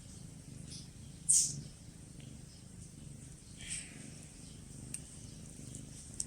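Kitten purring steadily as it kneads, with a short, loud rustle about a second in and a softer one near four seconds.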